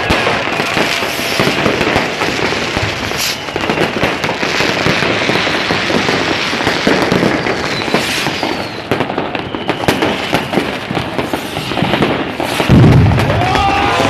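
Dense New Year's Eve fireworks and firecrackers going off all around, a continuous rapid crackle of bangs and pops. A heavy low thump comes about 13 seconds in.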